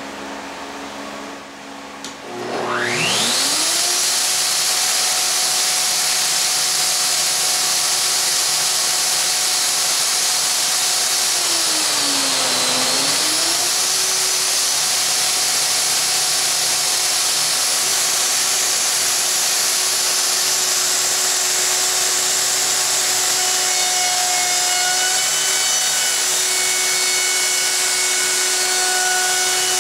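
Festool OF2200 plunge router starting up about two and a half seconds in, its whine rising to full speed, then running steadily as its carbide bit cuts a slot through a laminate-topped panel. Around twelve seconds in the pitch dips briefly as the dull, pitch-coated bit takes load, then recovers.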